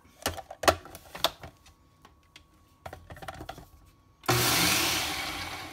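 Plastic clicks and knocks as the food processor's lid is fitted, then about four seconds in the food processor's motor starts and its blade whirs through granulated erythritol, xylitol and stevia, grinding them to powder. The whirring fades near the end.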